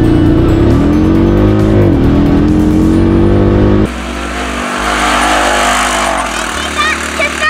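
Honda Pioneer 500's single-cylinder engine pulling hard from a standing launch in second gear, heard from inside the cab, its note rising, dipping once about two seconds in, then climbing again. Just before the four-second mark the sound drops to a quieter rushing noise of the machine heard from outside, with a few short squeals near the end.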